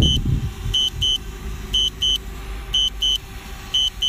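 Drone's low-battery warning: a high double beep repeating about once a second, over a low rumble that swells briefly at the start.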